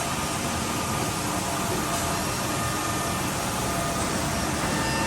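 CNC machine running steadily as it drills and cuts grooves: an even mechanical noise with a faint whine of several steady tones.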